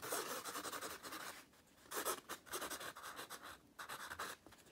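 Sharpie permanent marker writing a cursive signature on the back of a stretched canvas, the felt tip scratching across the fabric. It writes in three runs of strokes, with short pauses about a second and a half in and near the end.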